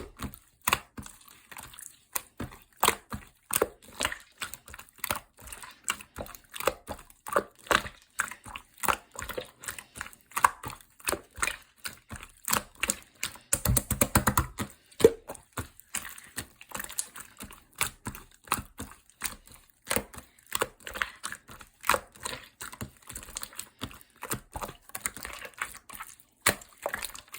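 Hands squishing and pressing a clear slime made with soothing gel, giving quick small clicks and pops, several a second. About fourteen seconds in there is one longer, louder squelch.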